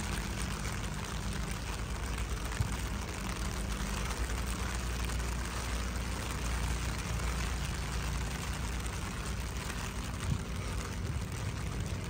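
Steady rain falling, an even hiss, with a low rumble underneath.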